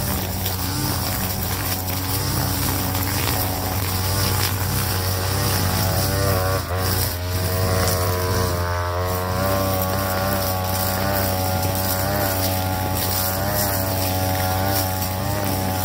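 A TB43 backpack brush cutter's two-stroke engine running at high speed while its line head cuts grass. The engine note wavers up and down with brief dips as the load changes.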